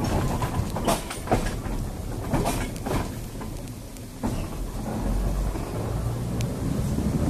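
Ex-Leeds electric tram running along the track, heard from its open end: a low rumble of wheels on rail with irregular knocks and rattles, and a low steady hum that comes in about five seconds in.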